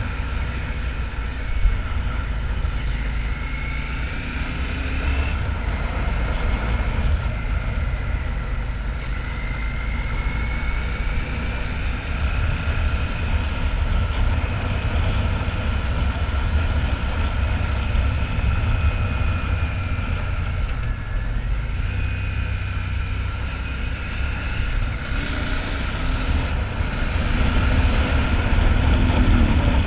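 Royal Enfield Shotgun 650's parallel-twin engine running steadily under way, with a low rumble of wind over the microphone; it gets a little louder near the end.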